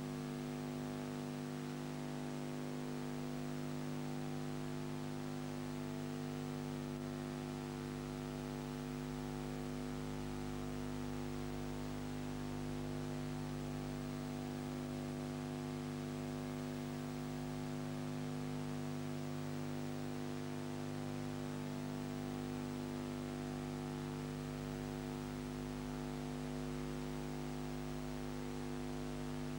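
Steady electrical hum with a stack of unchanging tones over a constant hiss; nothing else sounds. It is typical of a silent home-movie film transferred to video with only equipment hum on the track.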